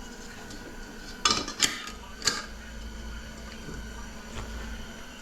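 Metal parts of a 4L60 automatic transmission clinking against each other three times in quick succession, over a low steady hum.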